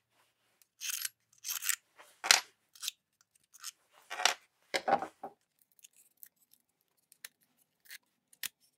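Hand-tool work on a disassembled Makita 9005B angle grinder: a flathead screwdriver clicks and scrapes against the metal spring clips and brush holders. There are about half a dozen sharper clicks and scrapes in the first five seconds, the loudest a little over two seconds in, then lighter ticks.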